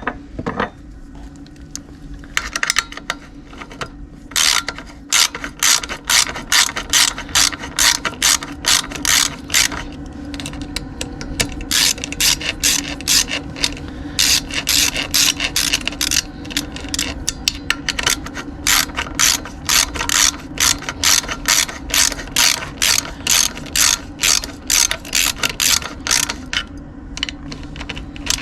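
Hand ratchet wrench clicking in quick runs of strokes with short pauses, as bolts are run back in after refitting parts on a pit bike engine.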